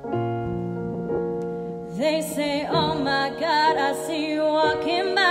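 Soft sustained piano chords from a backing track, then about two seconds in a woman starts singing into a microphone over them, her voice wavering with vibrato.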